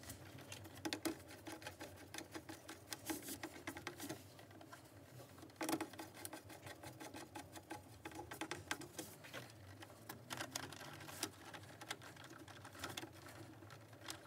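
Faint, irregular clicking and rustling of cables being handled and pushed into place among the breaker terminals of a consumer unit, with a sharper click a little before the middle.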